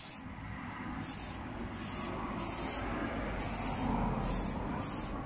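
Aerosol spray-paint can sprayed in short bursts on a steel chair frame: about seven quick hisses, each a few tenths of a second, with short gaps between.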